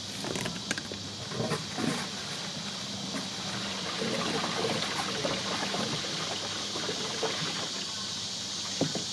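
Gray water running and gurgling down a lifted corrugated RV sewer hose into a Camco Rhino portable tote tank, draining the pipe into the tank. A few short knocks come from handling the hose, the sharpest near the end.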